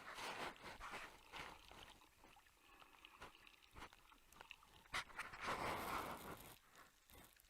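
Faint water swishing around an underwater camera, with scattered sharp clicks and one longer swell of rushing water a little past the middle.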